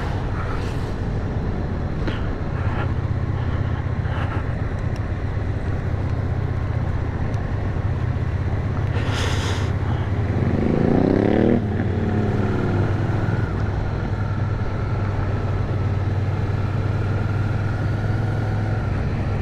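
Motorcycle engine running steadily at low road speed, heard from on board with road and wind noise. About ten seconds in, a motorcycle engine revs up with a rising pitch for about a second and then drops away.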